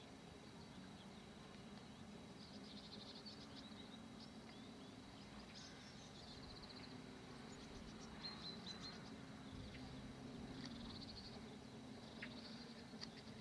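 Near silence: faint bird chirps and short trills now and then, over a low steady hum.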